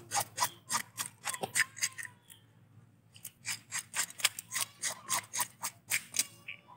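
Fish scaler scraped rapidly over a fish's skin on a wooden chopping block, rasping the scales off in quick strokes, about four a second, with a pause of about a second midway.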